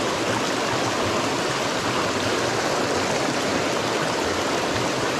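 Steady rush of a small mountain creek pouring over rocks into a pool.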